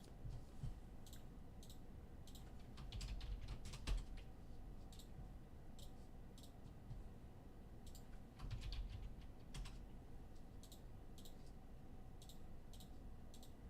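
Faint, irregular keystrokes and clicks on a computer keyboard, coming in short bunches with a few soft low knocks, as spots are filled in.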